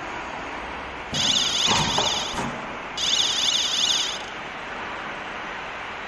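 Industrial machine noise: a steady hum with two bursts of a high, rapidly pulsing whine, each about a second long, the first with a few low knocks.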